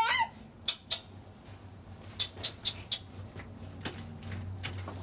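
The tail of a young child's babbling cuts off just at the start, followed by scattered soft clicks and taps, a small cluster of them about two to three seconds in, over a steady low hum.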